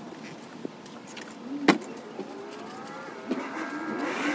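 Cardboard box and packaging handled as a 10-inch subwoofer is lifted out of its box: a sharp knock a little before halfway, then squeaky rubbing and rustling near the end.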